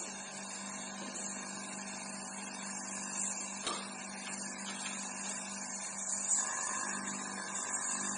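Refrigeration vacuum pump running steadily with an even hum while it evacuates an air conditioner's refrigerant lines. The owner says the pump has not had its oil topped up in a long time and has little power. A faint tick comes about three and a half seconds in.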